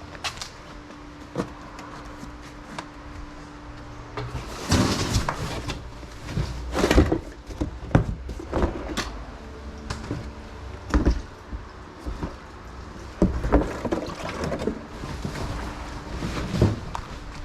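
Irregular clunks, knocks and scrapes of objects being handled, busiest from about four seconds in, over a faint steady hum.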